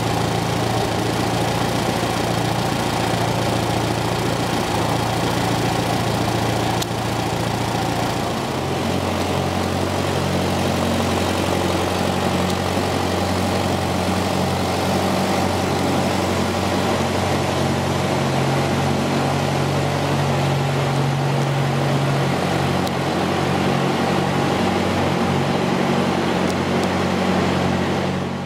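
Small Massey-Harris farm tractor's engine running steadily while it tows a light aircraft on a tow bar; the engine note shifts about eight seconds in, then holds steady.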